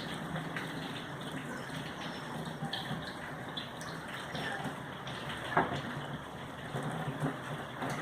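Steady running or splashing water with a few light knocks, one sharper knock a little past halfway.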